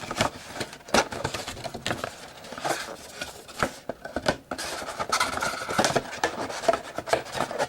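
Trading cards and a card pack being handled: irregular clicks, taps and rustling.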